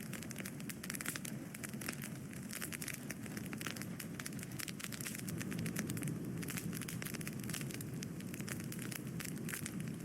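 Wood fire burning: a steady stream of many small, quick crackles and pops over the low, even sound of the flames.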